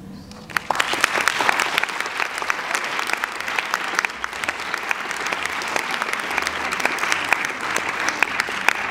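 Audience applauding: many people clapping in a dense, steady patter that starts about half a second in.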